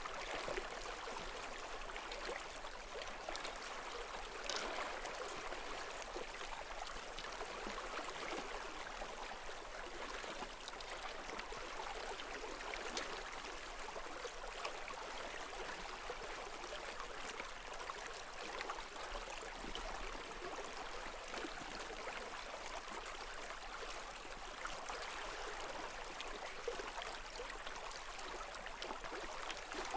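A stream running steadily: an even, unbroken rush of flowing water.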